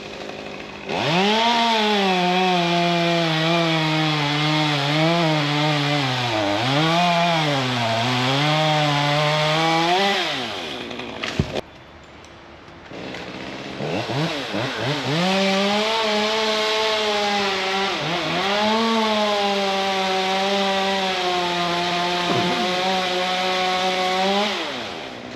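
Two-stroke chainsaw cutting through wood in two long cuts, its engine pitch sagging and picking back up as the chain bites. It drops off briefly about halfway between the cuts.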